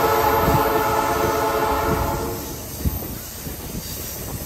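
The air horn of an MLW M420W diesel locomotive sounding one long chord that stops about two and a half seconds in. Under it the train runs on, with the low rumble and scattered clicks of wheels on the track.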